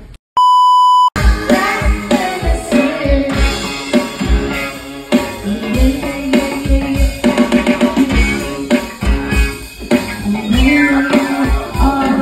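A short, steady beep of under a second near the start, then a live band playing: singers over electric guitar and drum kit with a steady kick-drum beat.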